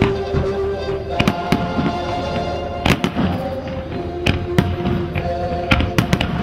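Aerial firework shells bursting in a rapid string of sharp bangs, the loudest about three seconds in, over music with long held notes.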